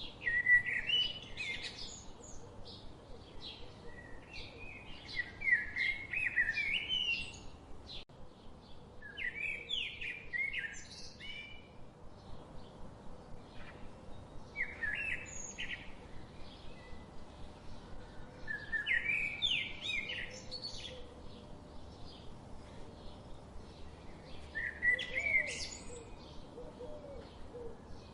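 A songbird singing six short phrases of quick rising and falling chirpy notes, one every four to five seconds, over a faint steady background hiss.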